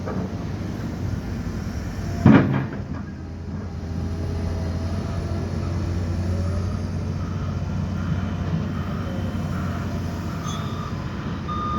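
Liebherr excavator's diesel engine running steadily, with one loud clunk about two seconds in. A reversing alarm begins beeping near the end.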